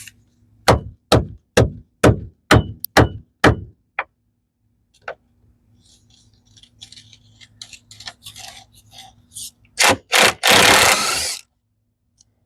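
Hand-tool work on a mud-caked skid plate under a UTV: a quick run of about eight sharp knocks, then faint scraping, and a loud burst of scraping about two-thirds of the way through.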